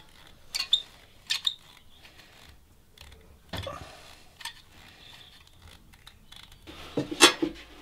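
Caulking gun clicking as its trigger is squeezed and released, pushing tile adhesive out of the cartridge in short beads; scattered sharp clicks, with the loudest cluster near the end.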